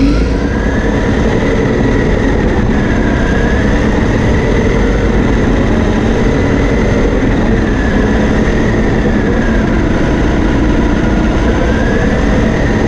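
Electric drive motor and drivetrain of a Donkey Car autonomous RC car, heard from a camera mounted on the car as it drives over carpet. A loud, steady rumble of vibration and wheel noise runs under a faint motor whine that rises and falls as the car speeds up and slows.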